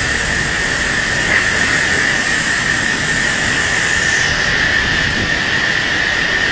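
Typhoon-force wind blowing steadily with driving rain, with a steady high whistle running through it.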